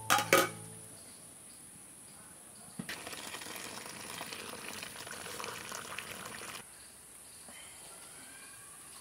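Steel plates clank twice against a cooking pot as they are lifted off. About three seconds in, steaming hot liquid pours and splashes into an aluminium basin for about four seconds, then stops abruptly.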